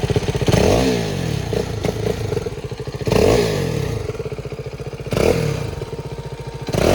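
KTM RC 390's single-cylinder engine on its stock exhaust, freshly cold-started: a pulsing idle broken by four quick throttle blips about two seconds apart. Each blip rises in pitch and falls straight back to idle.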